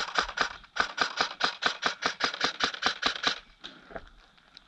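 Airsoft rifle firing a rapid string of about twenty sharp shots, roughly six a second, stopping about three and a half seconds in, with a few faint clicks after.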